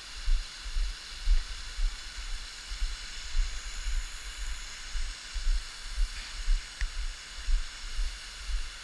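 Wind buffeting the camera microphone in uneven gusts, over a steady hiss of running water.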